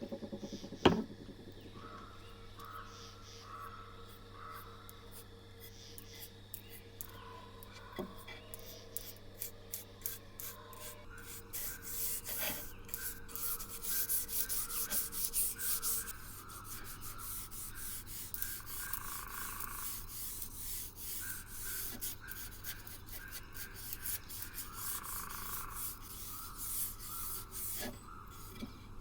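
Quick, repeated rubbing strokes on a surface by hand, coming thick and fast through the second half. A steady low hum lies under the first half, and a sharp knock sounds about a second in.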